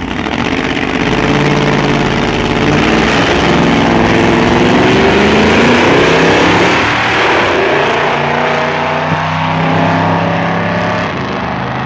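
Diesel drag-racing vehicles launching from the line and accelerating hard down the strip, engines rising in pitch for several seconds, loudest around the middle, then holding and easing off slightly as they pull away.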